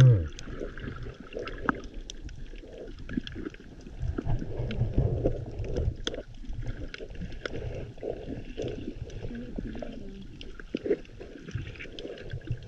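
Underwater sound at a GoPro camera held below the surface while snorkeling: an uneven low rumble of moving water, with scattered faint clicks throughout.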